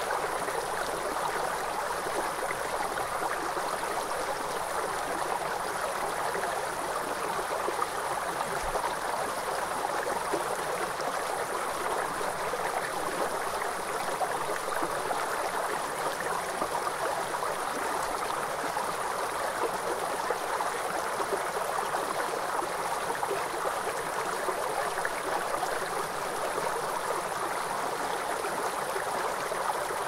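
A shallow, rocky river running over stones and small rapids: a steady, even rush of water.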